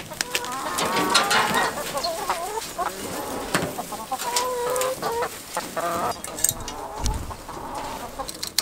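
Domestic hens clucking and calling, many short wavering calls overlapping, as their mobile coop is towed. Scattered clicks and knocks from the coop being wheeled over rough ground run through it, with a low thud about seven seconds in.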